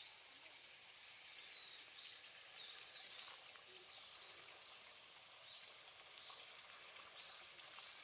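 Quiet outdoor ambience: a steady faint hiss with several short, high bird chirps scattered through it.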